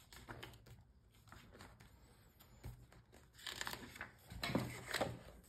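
Pages of a thick paperback book being riffled and turned by hand: soft papery rustles and flicks, which get louder and busier about three and a half seconds in.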